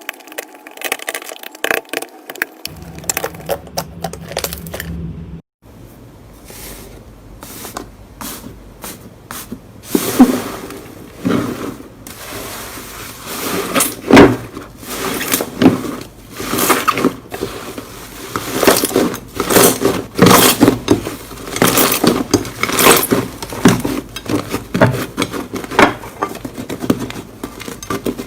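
Slime being squished and stretched by hand close to the microphone, making irregular sticky clicks and pops. The sound cuts out briefly about five seconds in.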